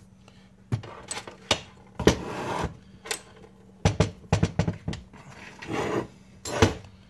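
Heavy steel transmission parts, the 4L80e forward clutch drum among them, being handled and set down on a workbench: a string of irregular clanks and knocks, with a short scraping rub about two seconds in and a louder knock near the end.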